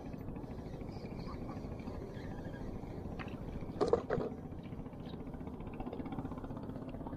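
A boat's motor running steadily under a low wash of noise, with one short louder sound about four seconds in.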